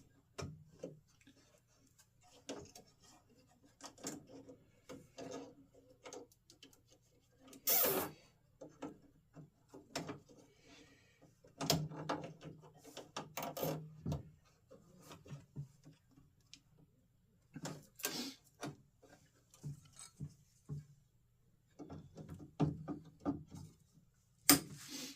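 Hand work on a Jeep door latch mechanism: irregular clicks, knocks and short scraping or rasping noises as the parts are handled and adjusted. The loudest is a short rasp about 8 seconds in.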